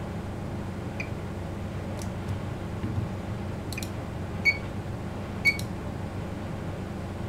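Steady low hum with a few short, sharp clicks that each ring briefly; the two loudest come about a second apart past the middle.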